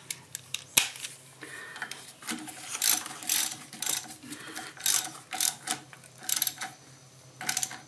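Ratchet wrench clicking in short runs of strokes, about ten of them, as it snugs down the terminal nuts on a golf cart's starter generator.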